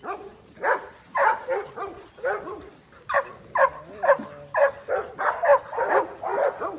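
A dog barking over and over, about two short barks a second, each dropping in pitch.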